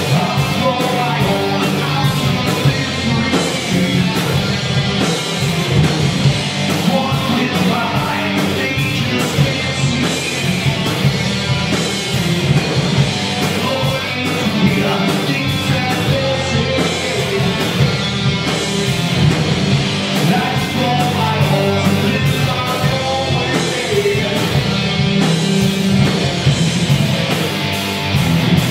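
Live heavy metal band playing loud: electric guitars, bass guitar and a drum kit, with a singer.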